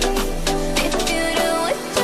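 Background music: a pop song with a melody over plucked guitar and a steady beat.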